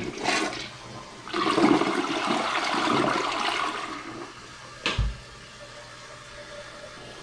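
DXV dual-flush toilet flushing on its second button: a loud rush of water for about three seconds, a single sharp knock about five seconds in, then a quieter steady hiss.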